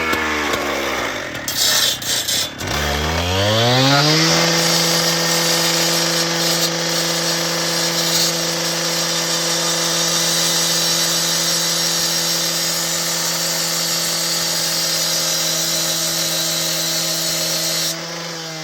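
Gas-powered cutoff saw: the engine drops back toward idle, then about three seconds in revs up to full throttle and holds steady for about fourteen seconds as the abrasive blade grinds through a steel chain link, the revs falling away near the end.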